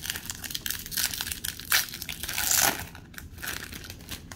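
Crinkly foil booster-pack wrapper being crushed and crumpled in the hands: a run of dense crackling with a sharp crack a little under two seconds in and a louder rustle about halfway through.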